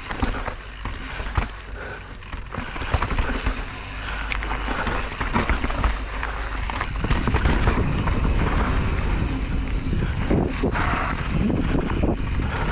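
Mountain bike riding down a dirt and rock trail: tyres crunching over gravel, stones and roots, and the bike clattering and rattling over the rough ground, with a steady low rumble of wind on the microphone.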